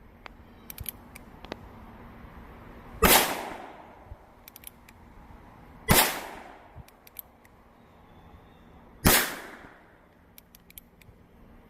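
Heritage Rough Rider single-action .22 revolver fired three times, about three seconds apart, each shot a sharp crack with a short fading tail, with faint clicks in between.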